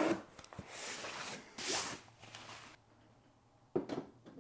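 Cardboard packaging rustling and scraping in several bursts as a network switch is pulled out of its box, then a sharp knock near the end.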